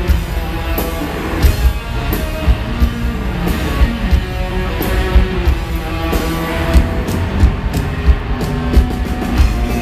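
A live rock band playing an instrumental passage: electric guitar over a drum kit, with a steady kick-drum beat and regular cymbal hits.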